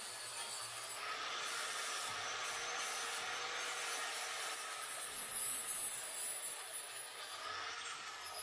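4½-inch DeWalt angle grinder with a flap disc grinding the edge of a steel lawnmower blade: a steady high motor whine over a grinding hiss, easing off near the end.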